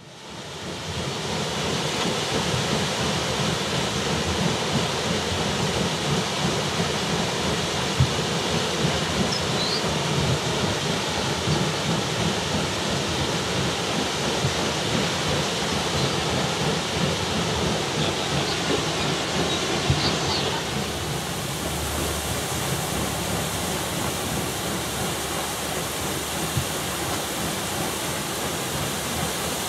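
Water rushing and splashing steadily at a turning mill waterwheel, with a couple of brief knocks. About two-thirds of the way through the sound turns to a brighter hiss.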